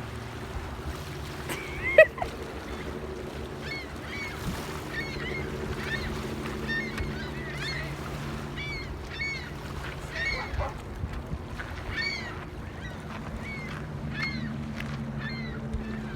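A flock of gulls calling over and over in short, hooked cries, many overlapping, over a steady low hum. A single sharp knock about two seconds in.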